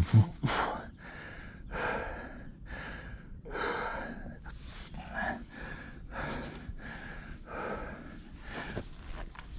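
A mountain biker panting hard from exertion, quick loud breaths at about two a second. A sharp knock right at the start.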